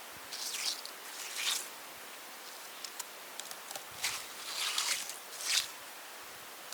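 A run of about six short rasping noises at irregular intervals, with a few faint ticks between them about halfway through.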